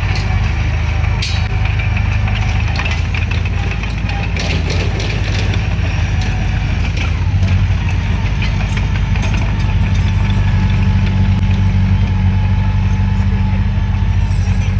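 Bulldozer's diesel engine running steadily, with scattered clanks.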